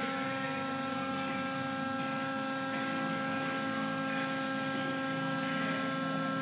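Steady, even machine hum with a pitched whine, from the hydraulic unit driving a blowout preventer's shear rams closed on a drill pipe.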